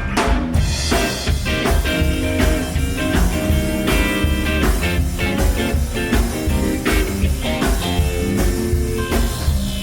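Live rock band playing an instrumental passage: guitars over bass and a drum kit, with no singing.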